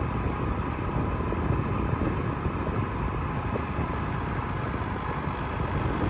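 Steady engine and road noise of a moving bus, heard from inside.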